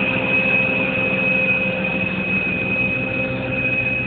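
Prochem Apex truck-mounted carpet cleaning machine running steadily: a constant high-pitched whine over a low, even machine hum.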